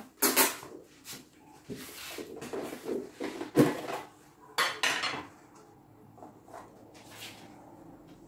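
Plastic lunch box, lid and tableware clattering and clinking on a kitchen counter as food is packed. There are several sharp knocks in the first five seconds, the loudest about halfway through, then only faint handling.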